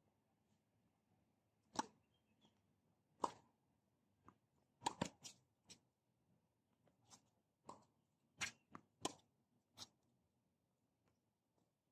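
Tennis ball being struck by rackets and bouncing on a hard court: about a dozen sharp pops at uneven intervals, several coming in quick pairs around the middle.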